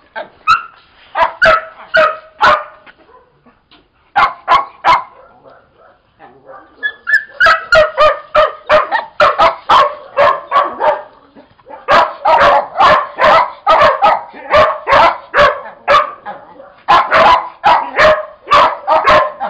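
Dogs barking excitedly in quick runs of short barks while play-wrestling, with a brief lull about three seconds in and again around five to seven seconds in.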